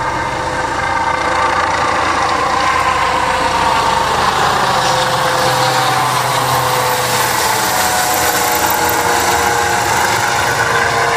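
Medical helicopter climbing away after takeoff and passing overhead: steady turbine whine and rotor noise, growing a little louder about a second in, with its pitch slowly sinking.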